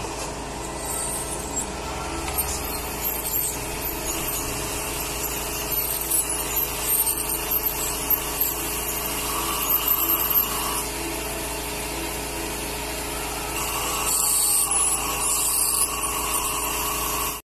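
Dental ultrasonic scaler running against teeth: a steady high whine with a hiss, growing louder in stretches around the middle and near the end, then cutting off suddenly.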